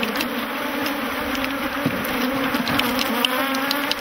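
A swarm of honeybees buzzing in a dense, steady drone. These are disturbed bees flying around opened hives after their frames have been shaken out.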